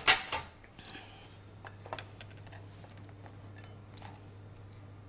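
A metal spoon clattering against the wooden cutting board and a plate as sliced capsicum is moved, a few sharp knocks in the first half second. After that only faint scattered ticks over a steady low hum.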